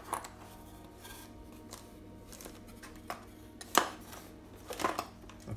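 Loose plastic DIP chips clicking and clattering against each other and the cardboard as a hand sorts through them in a small box, with a few sharp clacks, the loudest about four seconds in.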